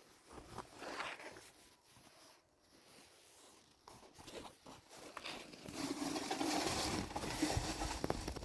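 Faint rustling and crinkling, then a steady rushing noise that builds from about six seconds in.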